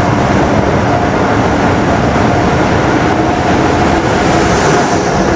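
Amtrak Acela Express trainset rolling past the platform as it slows to a stop, a steady rumble of wheels on rail with a faint held whine. A brief hiss comes near the end.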